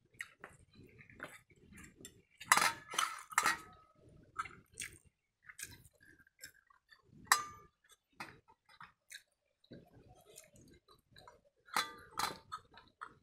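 Steel bowls and pots clinking and knocking as pakhala is eaten by hand, with a few sharp ringing clinks among softer scrapes and chewing.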